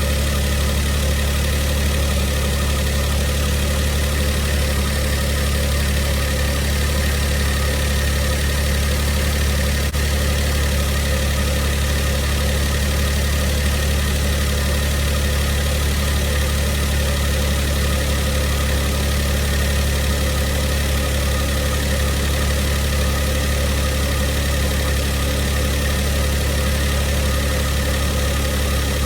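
Mitsubishi i's 660 cc three-cylinder engine idling steadily, run to show its abnormal noises: a rattle that the owner puts down to a failing air-conditioning compressor, strained by the new auto-tensioner, and a whirring from inside the engine whose cause he does not know.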